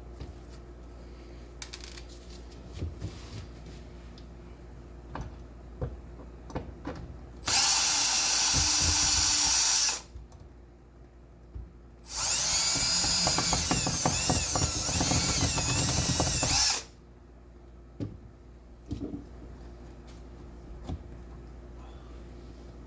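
Power drill running in two bursts, one of about two and a half seconds and a longer one of about four and a half seconds, its pitch wavering under load in the second. Small knocks and clicks of handling come between.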